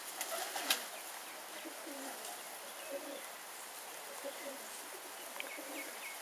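A flock of Vouta pigeons cooing as they feed, with low warbling coos repeating throughout. There is a sharp click about a second in, and a run of short, high chirps near the end.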